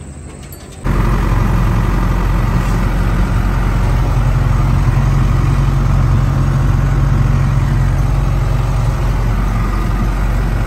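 Loud, steady engine and road noise of a moving vehicle heard from on board, starting abruptly about a second in.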